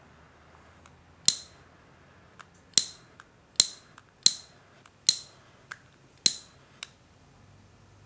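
A series of sharp plastic clicks with a brief ring, six loud ones and several fainter ticks in an uneven rhythm, from a handheld plastic pistol-grip spotlight being worked in the hands.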